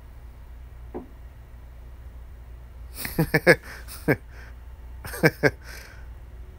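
A man laughing in two short bursts of descending chuckles, the first about three seconds in and the second about two seconds later, over a steady low hum.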